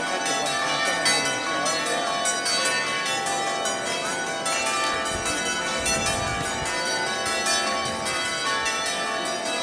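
Church bells ringing a continuous peal, several bells struck in quick succession with their tones overlapping and ringing on.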